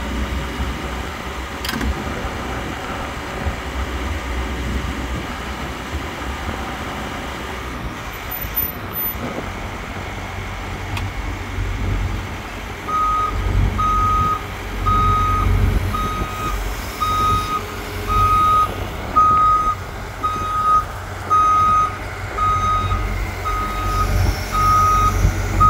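Caterpillar hydraulic excavator's diesel engine running with a steady low rumble; about halfway through the machine starts travelling on its tracks and its travel alarm beeps about once a second.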